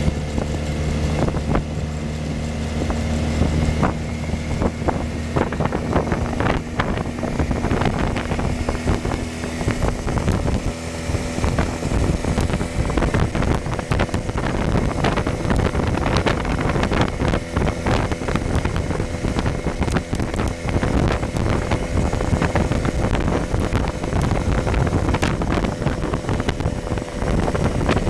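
Small vintage car's engine running while driving, with wind and road noise and frequent rattles in the cabin; the engine note changes a few seconds in and again about halfway through.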